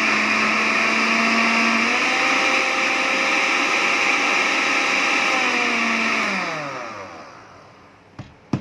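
Electric blender's grinder attachment running at speed, grinding roasted sesame seeds into powder; its whine steps up in pitch about two seconds in. Near the end the motor is switched off and winds down with a falling whine, followed by two sharp knocks.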